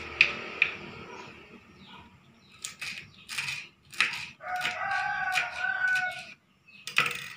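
Knife slicing red chillies on a wooden cutting board, a scattered series of sharp taps. Around the middle a rooster crows once, one long call of about two seconds.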